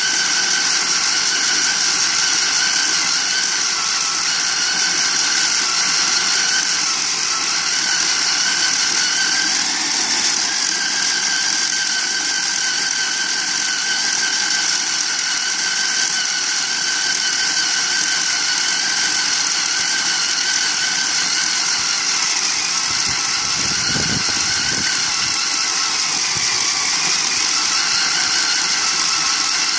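Stand-mounted electric diamond core drill running steadily under load, its motor whining as the water-fed diamond core bit grinds through concrete.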